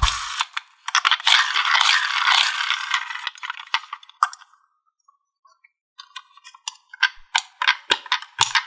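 Small hard-shelled candies pouring and clattering together in a dense rattle for about three seconds. After a short pause there are scattered single clicks as a few more pieces drop and settle.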